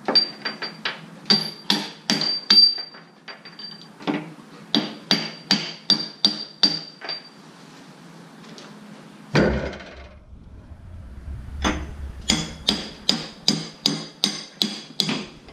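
Hammer blows on a steel pivot pin of a John Deere 310D backhoe's cylinder, driving the pin, each blow ringing metallically. The blows come in three quick runs of about three a second, with a single heavier thump between the second and third runs.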